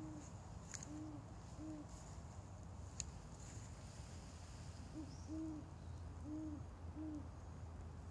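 Owl hooting: short low hoots in two runs, three in the first two seconds, then four more from about five seconds in, over a faint steady low hum.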